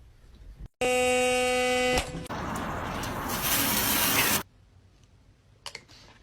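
A steady electronic buzzer tone sounds for about a second. It is followed by a loud hissing rush of noise lasting about two seconds that cuts off suddenly. A couple of faint clicks come near the end.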